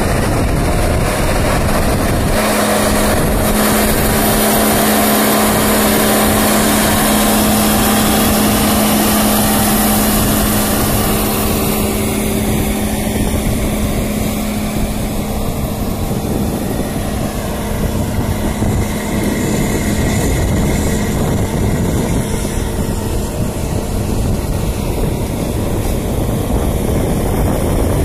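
Diesel engine of a 710 EVO articulated four-wheel-drive tractor running steadily under load as it pulls a six-shank paratill through the soil, a loud, even hum that eases slightly in the second half.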